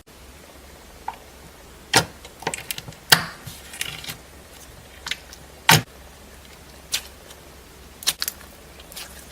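Slime being squeezed and poked by hand, giving irregular sharp clicks and pops, about ten in all, with a short crackle after one of the louder pops.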